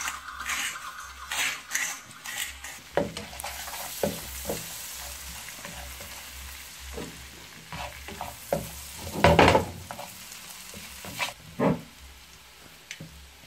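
Onions and chilli sizzling in bubbling oil in a frying pan while a flat spatula scrapes and stirs them, a run of short scrapes against the pan, the loudest about nine seconds in.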